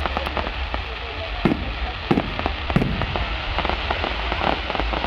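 Fireworks display: a rapid string of bangs and crackles over a steady low rumble, with three louder bangs about one and a half, two and nearly three seconds in.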